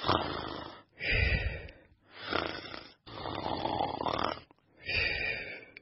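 A person snoring: about five snores in a row, each about a second long, with short breaks between them.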